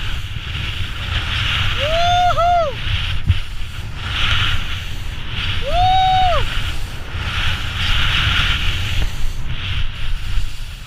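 Skis carving and scraping through soft spring snow, a hiss that swells with each turn about every two seconds, over steady wind rumble on the camera microphone. Twice, about two and six seconds in, a short whistle-like tone rises and falls.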